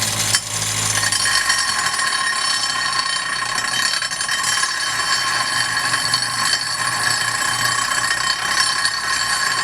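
Angle grinder running continuously, grinding down metal, with a steady high whine over a rough grinding noise.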